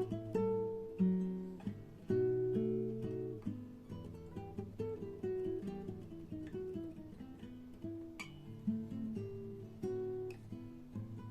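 Acoustic guitar playing a run of plucked notes and strummed chords, without singing.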